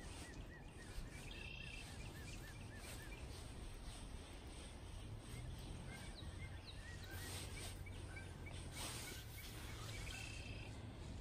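Small birds calling outdoors: a run of short repeated chirps, about four a second, for the first three seconds, then scattered chirps, with a brief buzzy call near the start and again near the end. A steady low rumble runs underneath.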